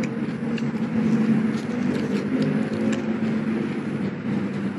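Steady engine hum of a motor vehicle, a low drone that drifts slightly in pitch.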